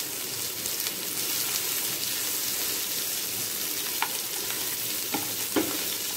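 Chopped onions sizzling in a little oil in a frying pan, softening, with a steady hiss while they are stirred. A few light clicks sound about four and five seconds in.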